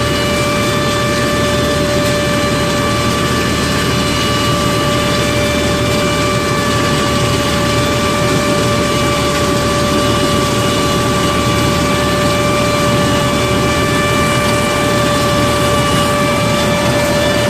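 Hasatsan H 1800 mechanical-sweeper nut harvester running steadily: a loud, even machine noise with a constant high whine over it.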